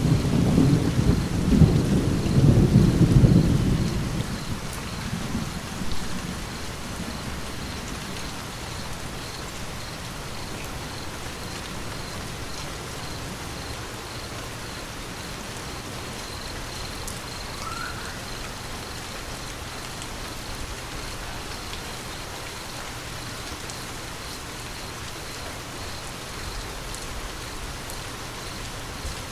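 Steady rain falling, with a roll of thunder in the first few seconds that dies away by about six seconds in.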